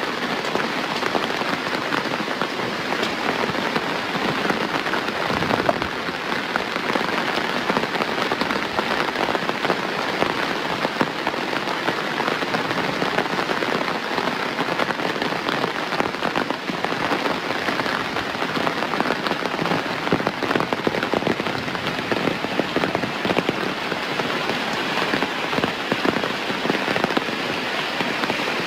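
Steady rain falling and pattering on surfaces, a dense even hiss of many drops with no let-up.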